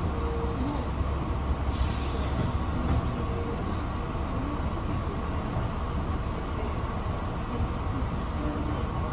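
Electric commuter train running slowly into a station, heard from inside the driver's cab: a steady low rumble of wheels and running gear that eases about three seconds in, with a few faint short whines.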